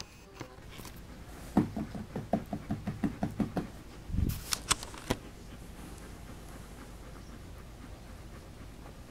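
Three-week-old puppy making a quick run of about ten short grunts, about five a second, followed by a dull thump and a few sharp clicks.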